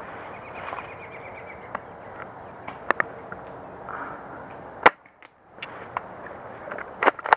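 Brush rustling with a few sharp clicks of airsoft shotgun fire, the loudest and sharpest about five seconds in, then a quick run of clicks near the end.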